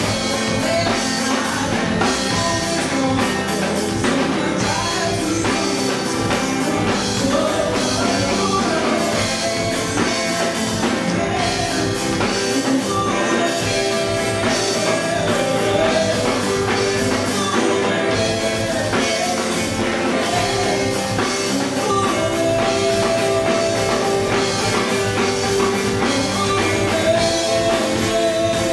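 Live band music with drums, guitar and a singing voice, playing steadily without a break.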